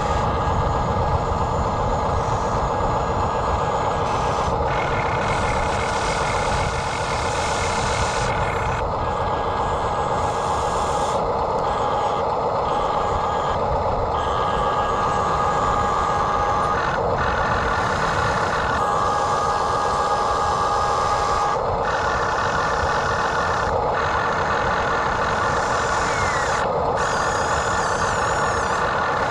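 Heavy machinery running steadily: a diesel engine's noise with a steady whine above it, broken by several abrupt cuts.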